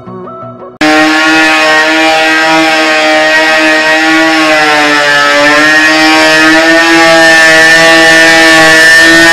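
Electric angle grinder with a sanding disc grinding along a steel body-panel seam on a VW Kombi. It cuts in abruptly about a second in, and its steady high motor whine sags in pitch midway as the disc is pressed in, then picks back up. The grinding strips the seam edges to bare metal ready for MIG welding.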